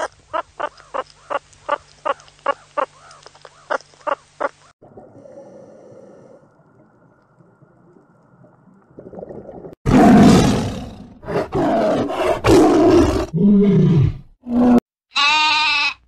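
A meerkat giving short, high chirping calls, about three a second; then a few seconds of faint hiss; then a run of loud, rough roars from a large animal; and near the end a lamb bleating.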